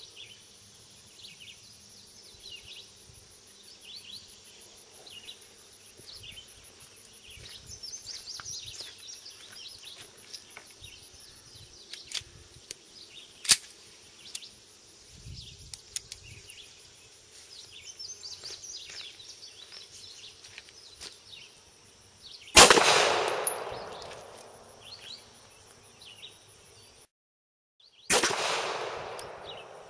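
Beretta 92A1 9mm pistol firing cast-lead hand loads: a few sharp metallic clicks as the pistol is handled, then a single loud shot about two-thirds of the way through that rings out over a couple of seconds, and another shot near the end. Faint chirping runs underneath.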